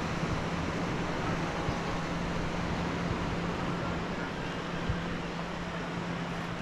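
Small waves washing onto soft sand as an even hiss, with a constant low hum underneath.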